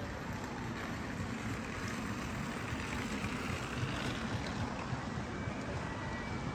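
Steady background din of a large airport terminal hall, with a rumbling low end that shifts as the camera moves.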